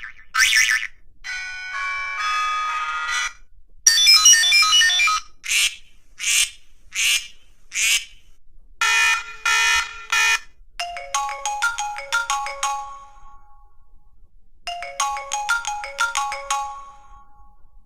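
A series of classic cell phone alert sounds and ringtones, one after another: short electronic chirps, quick runs of stepped beeping notes, a brief repeated two-tone ring, and a short beeping ringtone melody that plays twice near the end.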